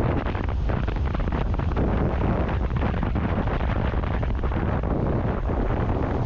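Strong wind buffeting the camera microphone: a steady, heavy rumble of wind noise.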